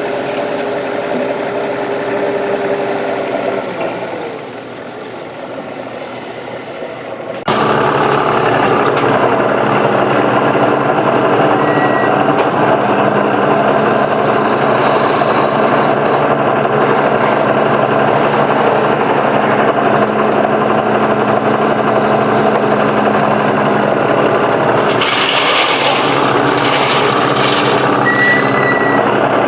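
Komatsu PC200 excavator's diesel engine running steadily. The sound quietens a little about four seconds in, then jumps abruptly louder at about seven and a half seconds and stays steady.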